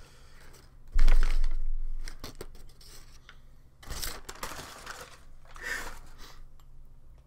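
Wrapping being pulled off a boxed teacup by hand: tearing and crinkling, with a sudden loud thump about a second in.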